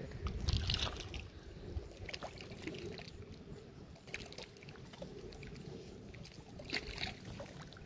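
Small lake waves lapping faintly against the shore over a low, steady rumble, with scattered light ticks.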